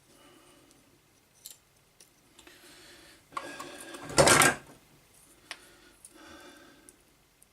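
Hand work on the hard plastic and metal parts of a dismantled cordless vacuum's motor housing: light clicks and rubbing, with one loud half-second scrape or clatter about four seconds in.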